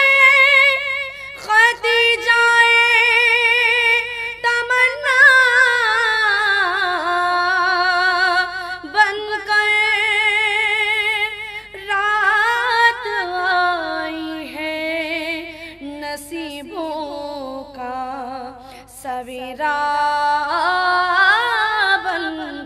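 A woman singing devotional Urdu verse (a manqabat) solo and unaccompanied, in long held, ornamented notes with a wavering vibrato. The phrases break off for brief breaths every few seconds.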